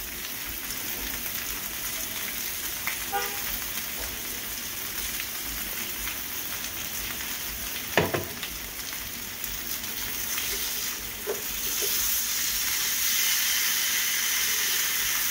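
Sauced lamb, duck and kebab meat sizzling on an electric indoor grill, a steady frying hiss. A single sharp clack comes about halfway through, and the sizzle grows louder near the end as tongs work the meat.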